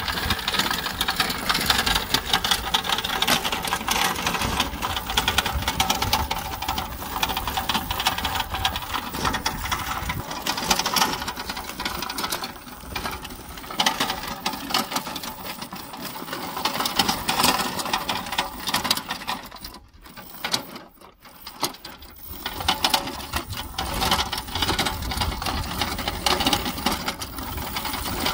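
Electric go-kart powered by a car alternator converted into a motor, whining steadily as it drives along a gravel track, with the tyres crunching over the stones. The sound drops away briefly about two-thirds of the way through, then picks up again.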